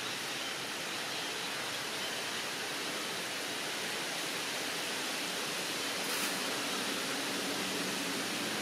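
A steady, even hiss of outdoor background noise, with no calls or distinct events standing out.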